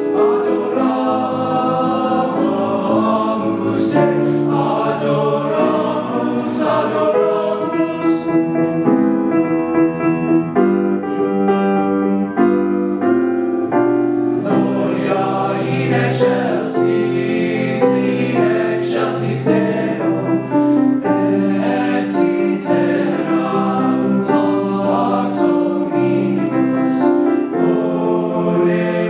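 Teenage boys' choir singing in several-part harmony, with held chords that change every second or so over a low bass part.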